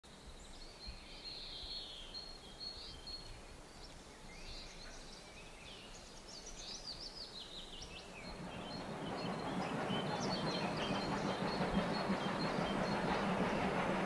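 Birds chirping over faint surroundings; about eight seconds in, a steady rushing noise from the approaching steam locomotive CFL 5519, climbing a steep grade, rises and keeps growing louder.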